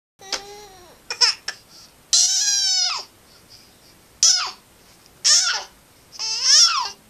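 Baby fussing and crying in a string of short, high-pitched wails and squeals, each under a second, pitch sliding up and then down: an attention-seeking cry, wanting to be picked up.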